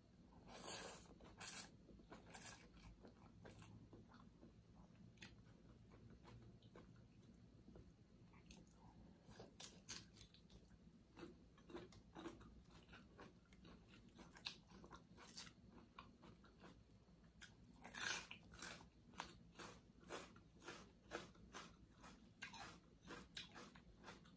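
Close-up eating of a Thai glass-noodle salad. Glass noodles are sucked into the mouth about a second in, followed by steady chewing with many short crunchy bites and wet mouth clicks, and another louder mouth sound near eighteen seconds.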